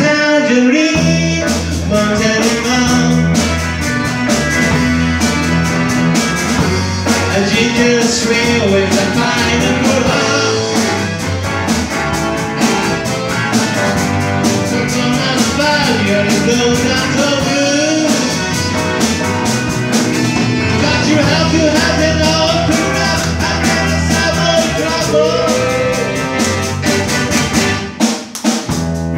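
A rock band playing live: electric guitars, bass guitar, drum kit and keyboards, with a man singing lead. The music drops back briefly near the end.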